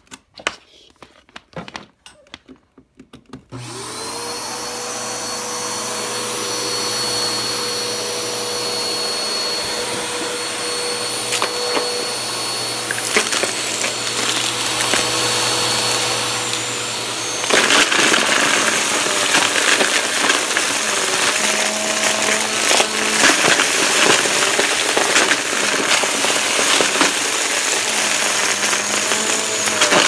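Upright bagless vacuum cleaner switched on about three seconds in after a few light knocks, its motor spinning up into a steady hum with a high whine. About halfway through it gets louder and rattles with sharp clicks as it is run over cardboard and sucks up dog food kibble, pebbles and other small debris.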